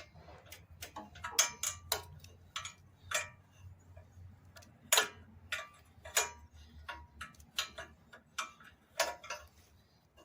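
Wrench working a bolt on a riding mower's muffler mount: irregular sharp metallic clicks and clinks, some ringing briefly.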